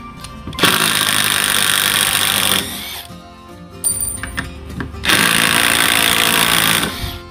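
Ridgid R87207 18V cordless impact driver running in two bursts of about two seconds each, the first about half a second in and the second about five seconds in, driving a long screw in wood.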